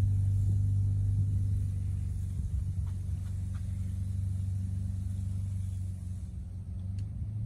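Can-Am Commander side-by-side's engine running at a steady speed with a low hum, slowly growing fainter.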